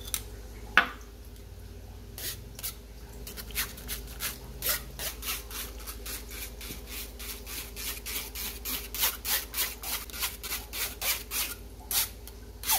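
A steel spoon scraping yogurt through the fine wire mesh of a strainer: a quick series of rasping strokes, about three a second, with a sharp knock just under a second in.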